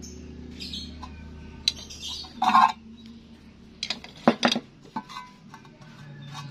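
Light metallic clinks and knocks as a steel gate wheel is lifted out of a notched square steel tube and set down, with a cluster of sharp clicks a little after four seconds in. A low hum underneath stops about four seconds in.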